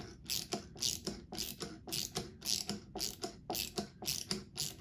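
Quarter-inch drive socket ratchet with a 7/16 socket clicking steadily, about three clicks a second, as it backs out the firing pin of an Austin & Halleck muzzleloader bolt.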